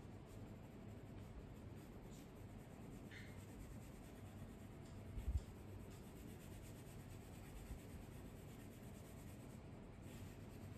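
Faint scratching of a colour pencil shading on paper, with a dull low thump about halfway through.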